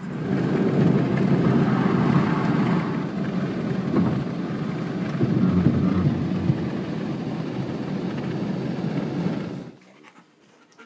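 Road and wind noise inside a moving car, a loud, steady rumble that cuts off abruptly near the end.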